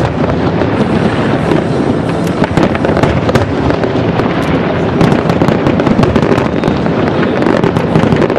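Aerial fireworks shells bursting in a dense, continuous barrage: many sharp bangs and cracks in quick succession, with no pause between them.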